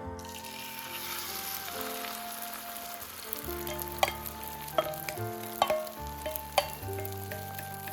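Food sizzling in a hot pan, with a few sharp clicks about halfway through, over background music.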